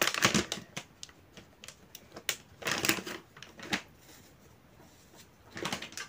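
Irregular light clicks and taps of makeup being handled, an eyeshadow palette and brush, with a short scraping rustle about halfway through and a cluster of clicks near the end.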